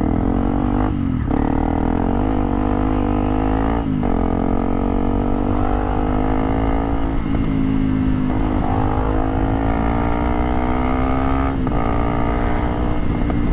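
Motorcycle engine heard from the rider's seat, pulling under way. The engine note climbs, then briefly breaks and drops in pitch four times as the rider shifts up through the gears.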